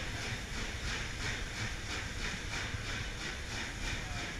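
Carriages of a departing steam-hauled train rolling past close by: a steady rumble and hiss with a faint even pulse about three times a second.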